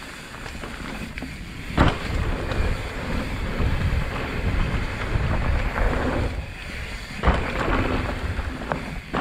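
Mountain bike ridden down a dirt drop-and-jump line: wind rushing over the GoPro's microphone and tyres rumbling on dirt, with two hard thuds of landings, about two seconds in and again about seven seconds in.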